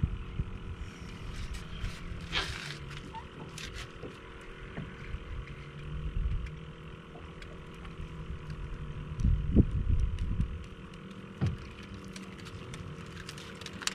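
Spinning reel being cranked to bring in a hooked jack, with scattered light clicks over wind rumbling on the microphone and a faint steady hum. The strongest wind gust comes about nine to ten seconds in.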